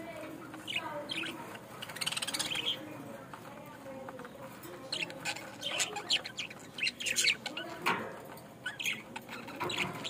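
A group of budgerigars chattering, with many short, overlapping chirps and warbles.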